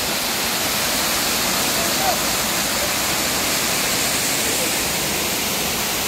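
Steady rushing of a waterfall and its stream pouring over rocks, with faint distant voices calling out, one brief call about two seconds in.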